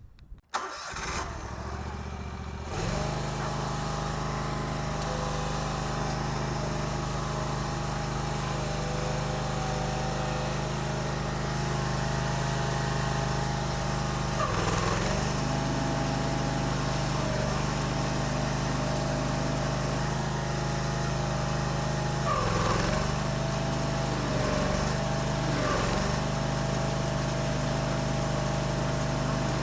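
An engine starts about a second in and settles into steady running at about three seconds, its speed dipping briefly several times around the middle and near the end.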